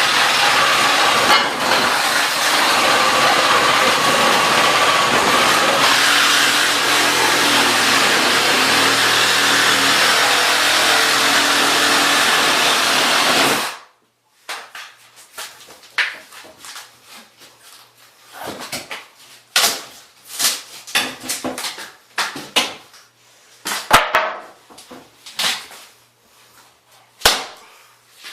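Reciprocating saw (Sawzall) cutting through particle-board cabinet panels, running steadily for about fourteen seconds and then stopping suddenly. After it stops come scattered knocks and clatter.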